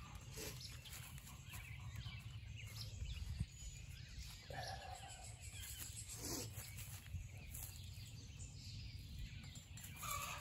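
Backyard hens clucking faintly, a few separate calls about halfway through and again near the end, over a steady low rumble. This is the clucking of a hen around laying an egg.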